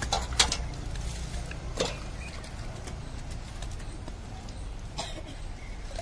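A few short scrapes of a small hand tool digging into soil: two close together at the start, another about two seconds in and one near the end, over a steady low rumble.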